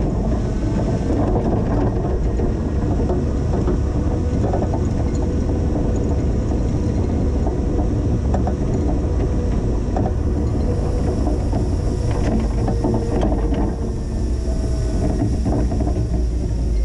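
Linde H20 EVO forklift's engine running steadily while it pushes snow, with a few short knocks along the way.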